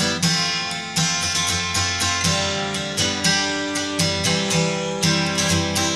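Background music: acoustic guitar strummed in a steady rhythm, a strong strum about once a second.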